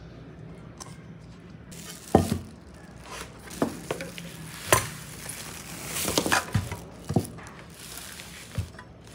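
Food sizzling in a frying pan, the sizzle starting about two seconds in, with a cooking utensil knocking and scraping against the pan several times.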